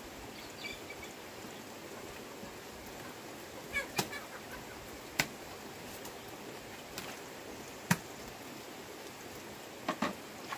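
Sharp knocks at irregular intervals, two of them in quick pairs, over a steady low hiss.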